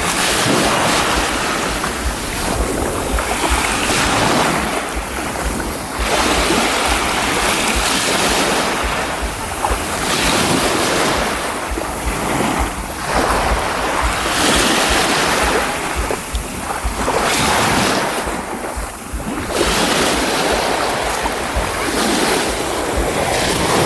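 Baltic Sea surf washing up on the shore, the rush of breaking waves swelling and falling back every few seconds. Wind buffets the microphone with a low rumble throughout.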